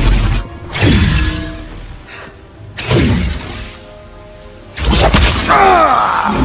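Film soundtrack music broken by three sudden crashing, shatter-like hits, about one, three and five seconds in. Each hit is followed by a falling sweep and fades before the next, and a swirl of gliding tones follows the last one.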